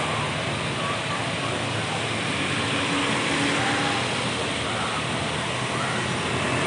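Steady road traffic at a roadside: bus and other vehicle engines running past, with tyre and engine noise.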